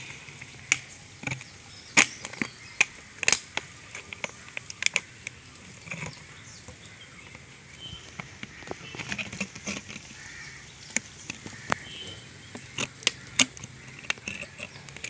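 Thin plastic water bottle crinkling and crackling in the hands with irregular sharp clicks, while a rubber balloon is worked over its mouth.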